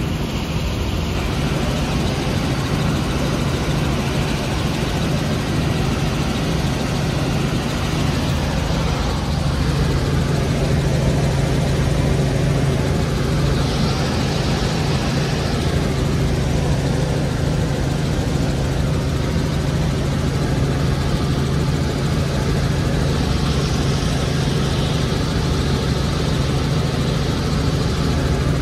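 Helicopter in flight, heard from inside the cabin: a steady, loud drone of engine and rotor, with a strong low hum that does not change.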